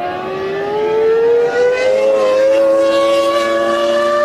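Arrows Formula One car's Supertec V10 engine under full acceleration in one gear, its pitch climbing steadily for the first two seconds and then more slowly. There is no gear change in this stretch.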